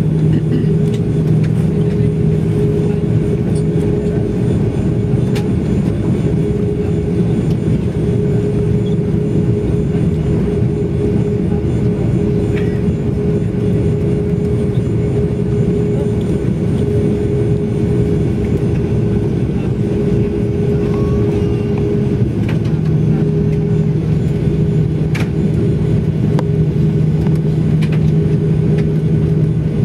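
Cabin drone of an Airbus A340-600 taxiing, its four Rolls-Royce Trent 500 engines at low thrust: a steady low hum with a steady higher tone above it, unchanging in level.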